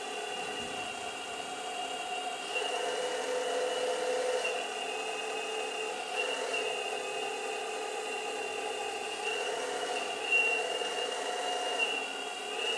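Hydraulic pump of a 1:8 scale model Caterpillar 390D excavator whining steadily while the bucket is curled on its hydraulic cylinder. The high whine shifts in tone and strength every couple of seconds as the load on the pump changes.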